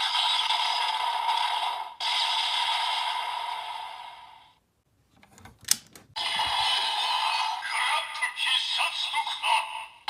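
Electronic sound effects and music from a DX Kamen Rider Saber toy playing the Primitive Dragon Wonder Ride Book's audio through its small speaker, thin with no bass. The first jingle fades out about four seconds in, a sharp click comes near the middle, and new toy audio starts about six seconds in.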